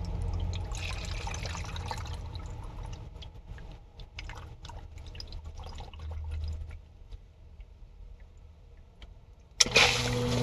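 Water running into a sump basin, thinning to trickles and scattered drips. Near the end the ProFlo PF92341 sump pump kicks on with a sudden thump and then a steady motor hum: the rising water has lifted its float switch.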